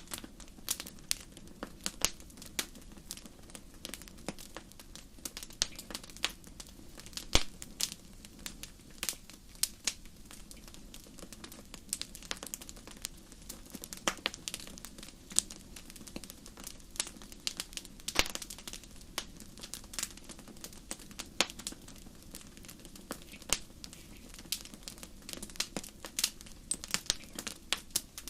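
Crackling wood fire: irregular sharp pops and snaps of burning wood, several a second, over a low steady hiss.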